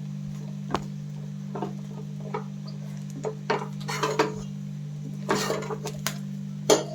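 A spatula scraping and knocking against a pan as chicken fried rice is stirred and tossed, in irregular strokes that grow busier from about three seconds in. A steady low hum runs underneath.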